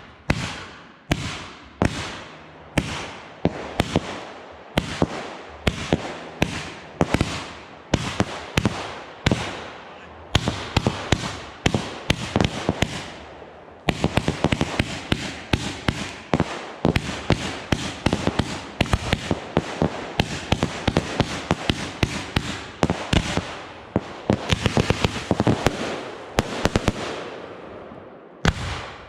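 Fireworks display: a quick series of loud aerial shell bursts, each bang trailing off in a short crackle. About halfway through it turns into a dense barrage of overlapping bangs and crackling, which eases off near the end.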